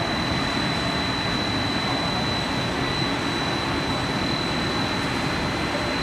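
A snack-pellet extrusion line running: a steady, unbroken machine drone with a thin, constant high whine through it.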